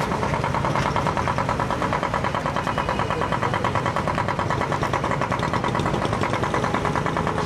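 A vehicle engine idling close by, with a fast, even throb that holds steady.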